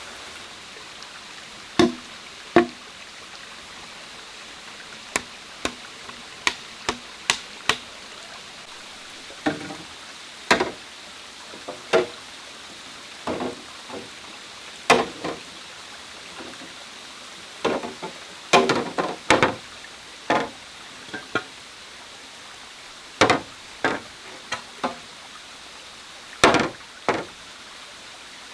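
Bamboo being chopped and knocked by hand: irregular sharp wooden hits, some single and some in quick clusters, over a steady background hiss.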